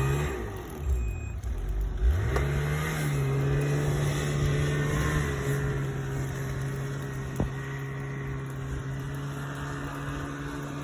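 Snowmobile engine revving up about two seconds in, then held at a steady high speed while trying to get out through about three feet of snow. A single sharp click comes a little past the middle.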